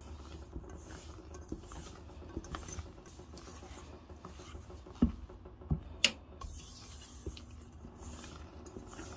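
Silicone spatula folding genoise sponge batter in a stainless steel bowl: soft wet scraping and slapping of the batter against the metal. Three sharp knocks against the bowl come about five to six seconds in.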